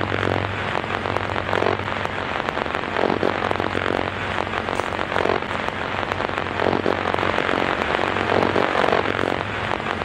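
2001 Ford F-250 Super Duty's 6.8-litre V10 idling, its exhaust heard close: a steady low hum under an even rushing noise.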